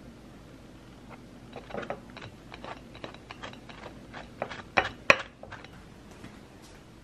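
Metal spoon tapping and scraping against a ceramic plate while spreading sauce over rice cakes: a run of small clicks, with two sharp, loud clicks about five seconds in.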